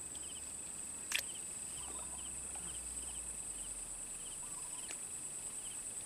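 Insects droning steadily at one high pitch, with another insect chirping in short trills about twice a second. A single sharp click comes about a second in.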